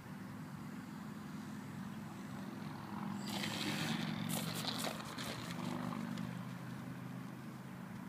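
Small electric RC model plane landing on grass: a steady low hum of its brushless motor and propeller, then about three seconds in a burst of rustling and scraping with several quick knocks as the oversized wheels touch down and bounce through the grass, lasting about two seconds before the hum settles again.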